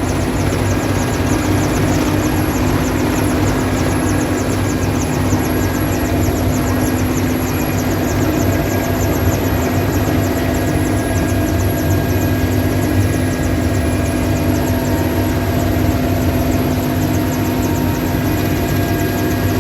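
Firefighting helicopter flying, with a steady engine hum and a fast, even rotor chop.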